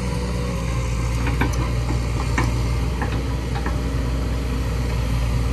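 Kobelco hydraulic excavator's diesel engine running steadily as the boom and bucket move, with a few light clicks and knocks scattered through.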